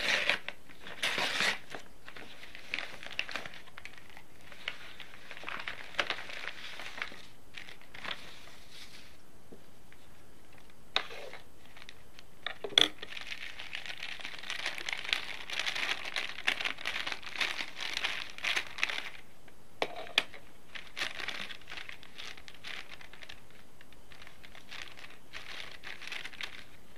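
Paper and plastic packaging crinkling and rustling in irregular spells as a parcel is unwrapped by hand, busiest in the middle, with a couple of sharp clicks.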